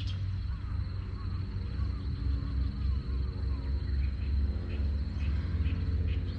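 Outdoor ambience: a steady low rumble, with a thin, steady high insect trill over it and a few faint chirps between about one and two seconds in.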